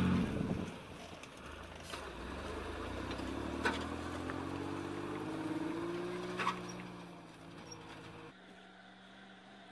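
Diesel engine of a loaded six-wheel logging truck driving past and pulling away, its note climbing steadily as it accelerates, with a few sharp metallic clanks. It then fades as the truck moves off.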